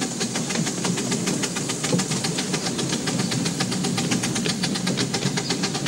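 7¼-inch gauge miniature steam locomotive working a train away from a station, heard from the riding car just behind it: rapid, even exhaust beats over the hiss of steam.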